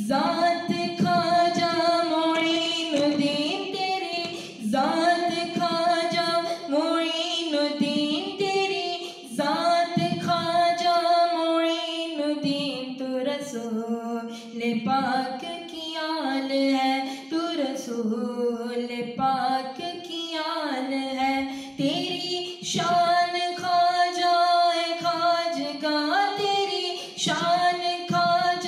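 A man singing a manqabat, a Sufi devotional song, unaccompanied: one voice whose melody rises and falls through long held notes, with short breaths between phrases.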